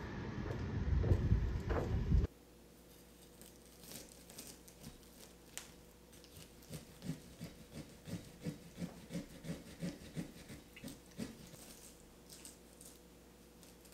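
Wind buffeting the microphone with a low rumble, cut off abruptly about two seconds in. Then a kitchen knife saws through a cob of sweet corn on a wooden cutting board, in a run of quick rhythmic strokes about three a second.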